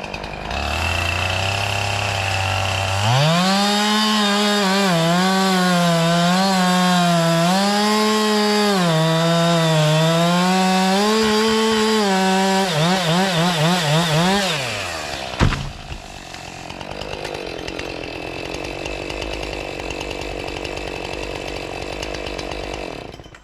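Chainsaw idling, then revved up and cutting into wood, its pitch dipping and recovering under load, then blipped up and down before winding down. About fifteen seconds in there is a single sharp crack, followed by a steady, quieter rushing noise.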